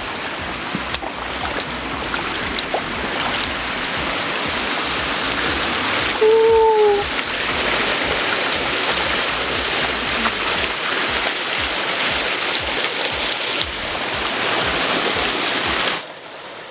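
Steady rush of flowing water, with a short, slightly falling horn-like tone about six seconds in. The water sound cuts off abruptly near the end.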